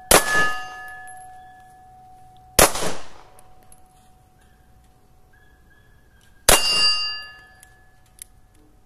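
Three shots from a compact 9mm pistol firing 162-grain 9x19mm rounds, the second about two and a half seconds after the first and the third about four seconds later. Each shot leaves a metallic ring that lingers for a second or more.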